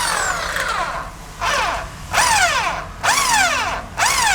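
Electric hand drill boring a hole through the outer wall of a motorcycle's double-walled exhaust bend pipe. It runs in five short trigger bursts, and its motor whine jumps up and then falls in pitch each time.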